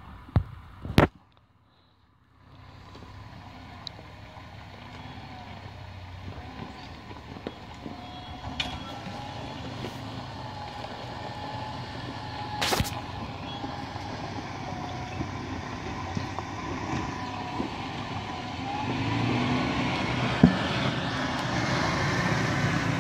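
Toyota Land Cruiser engine running at low revs as the truck crawls down a rocky track, growing steadily louder as it approaches. There is a single sharp knock about halfway through, and a brief dead gap about a second in.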